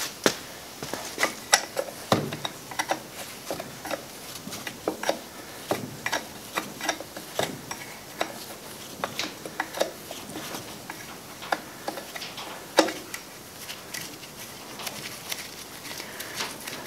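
Irregular metal clinks and knocks as a cast tail-shaft adapter housing is handled and seated against an NV242 transfer case.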